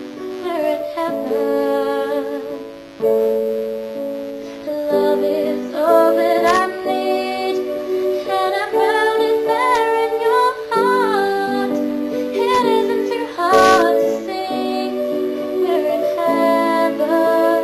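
Slow ballad music with held chords changing every second or two, and a woman's voice singing over part of it.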